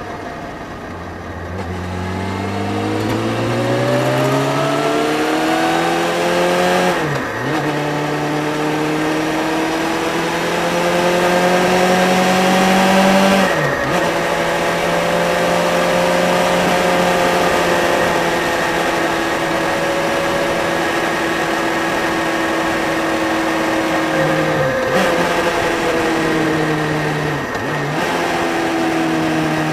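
Motorcycle engine pulling through the gears while riding: its pitch climbs and drops sharply at two upshifts, then holds at a steady cruise with two brief dips near the end, over steady wind rush.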